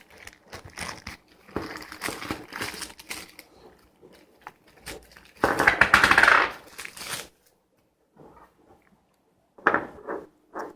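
Rays wheel center caps being handled and set down, clicking and clinking against each other amid rustling packaging, with a louder rustle lasting nearly two seconds about five and a half seconds in. A few more short clicks near the end.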